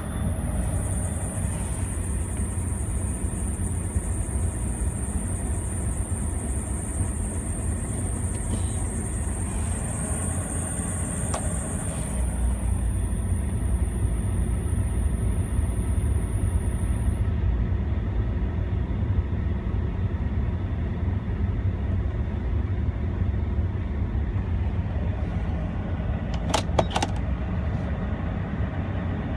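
2004 Ford Expedition's 5.4-litre V8 idling while the accessory drive belt gives a steady high-pitched squeal, which stops about two-thirds of the way through. The squeal is a cold-weather one that comes with a drop in alternator voltage. A few clicks near the end.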